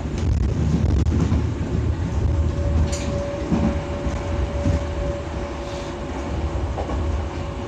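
Berlin U-Bahn F79.2 train heard from inside the carriage while running along the line: a steady low rumble of wheels on rail with a few clicks from the track. A steady whine comes in about halfway through and holds for a couple of seconds.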